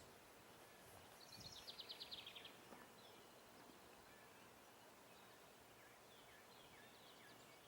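Faint outdoor background hiss with a small bird singing a short, rapid trill of high notes about a second in, followed by scattered faint chirps.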